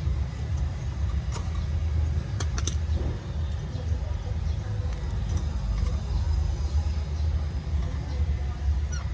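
Sharp metal clinks and clicks of tools and parts being worked on the gearshift balancer linkage under a van, a few scattered through the first half, over a steady low rumble.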